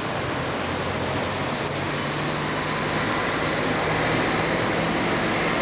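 Street traffic noise: a steady rushing hiss of passing vehicles with a faint low hum, getting a little louder toward the end.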